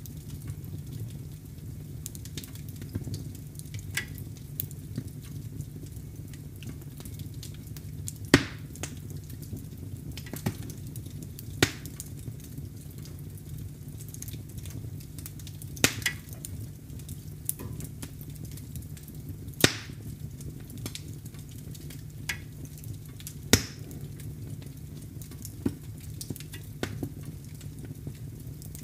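Wood fire crackling in a fireplace: a steady low rumble under scattered small crackles, with a sharp loud pop every four seconds or so.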